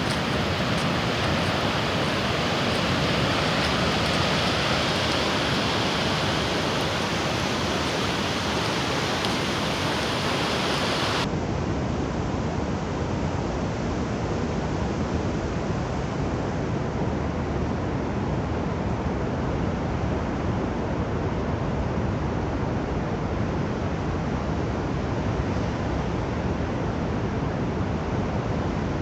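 Pacific surf breaking and washing up a sand beach, with wind on the phone's microphone, a steady rushing hiss. About 11 seconds in the sound changes abruptly to a duller, deeper rumble of surf.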